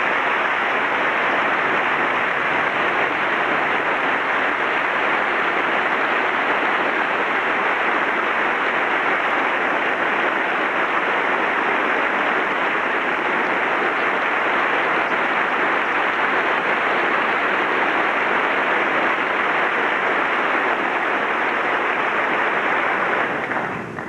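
A large audience applauding steadily for over twenty seconds, dying away near the end.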